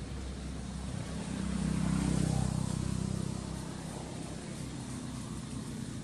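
A motor vehicle passing by, its low engine hum swelling to a peak about two seconds in and then fading away, over steady outdoor background noise.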